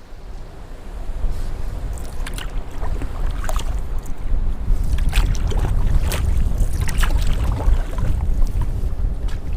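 Wind buffeting the microphone while canoeing, a loud low rumble that builds over the first second and holds. Scattered sharp clicks and taps sound over it.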